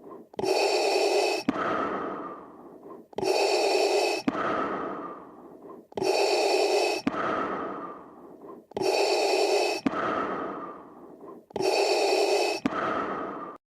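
Darth Vader's mechanical respirator breathing: a slow, even cycle of a loud rasping breath and a fading hiss, repeating about every three seconds.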